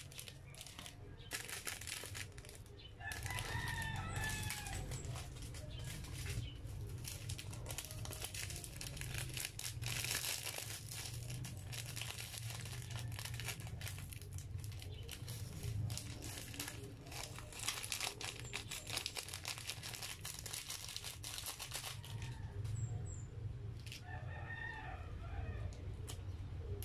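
Small plastic sachets crinkling and tearing as they are handled and opened. A rooster crows twice in the background, about three seconds in and again near the end, over a low steady hum.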